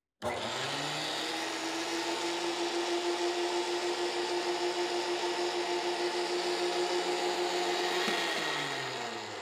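DeWALT DW735 thickness planer running with no wood going through it. The motor and cutter head come up to speed in about half a second and run steadily. About eight seconds in they are switched off and wind down, falling in pitch.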